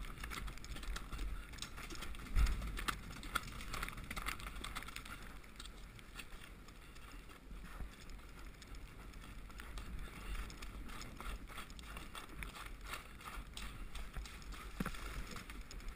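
Hoofbeats of a horse moving at speed over soft, churned turf, heard from the rider's head-mounted camera: a run of dull thuds over a steady low rumble. A heavier thump comes about two and a half seconds in.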